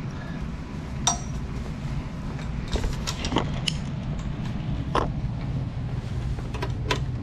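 Irregular metal clinks and ticks from a hand wrench on bolts while electric scooter parts are bolted together, over a steady low hum.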